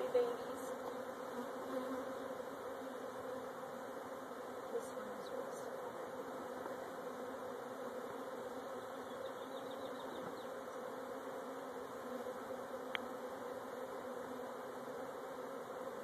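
A large swarm of honeybees buzzing in a steady hum around an opened hive box, with a few small ticks and knocks from the wooden parts and tools, the sharpest about thirteen seconds in.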